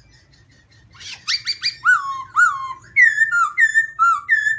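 Black-throated laughingthrush (Garrulax chinensis) singing loud, clear whistled notes. About a second in comes a quick run of rising notes, then two whistles that drop in pitch, then a string of alternating high and low two-note phrases.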